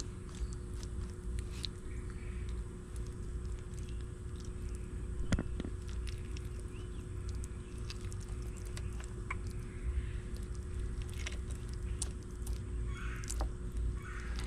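A reptile biting and chewing at a piece of food, with scattered short crunches and clicks over a steady low rumble.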